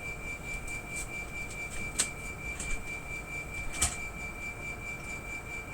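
Air-conditioner outdoor unit's compressor running with a steady high-pitched whine over a low rumble, an abnormal compressor noise; two sharp ticks about two and four seconds in.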